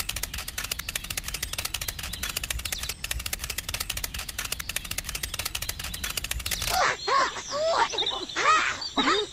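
Edited-in cartoon sound effects: a fast run of clicks, then from about seven seconds in a series of squeaky, swooping comic calls.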